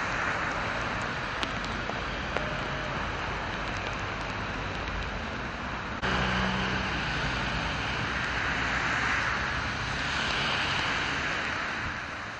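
Heavy rain hissing steadily on city streets, mixed with the noise of traffic on wet roads. The sound jumps louder abruptly about six seconds in and fades out near the end.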